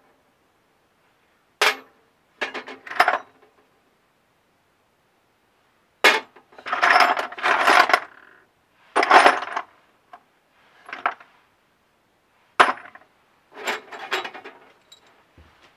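Loose metal screws, bolts and washers clinking and rattling against each other in a wooden drawer as a hand rummages through them. The clinking comes in several short bursts with silence between.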